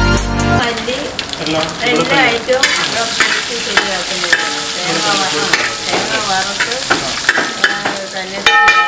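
Oil sizzling and crackling in a wide metal pan over a wood fire as curry leaves, green chillies, dried red chillies and onion are fried for a tempering, stirred and scraped with a metal ladle. A snatch of electronic music cuts off about half a second in.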